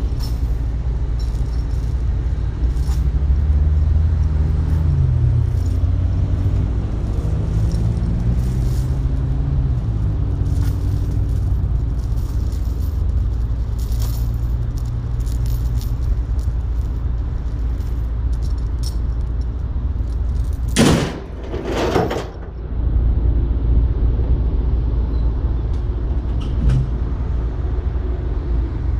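Semi-truck diesel engine idling with a steady low rumble, its pitch wavering a little in the first part. Two short bursts of noise break in about two-thirds of the way through.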